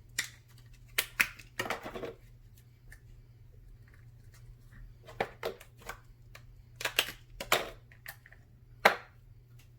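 Pizza toppings being handled and put onto the dough: short rustles and taps of packaging and food in scattered clusters, over a steady low hum.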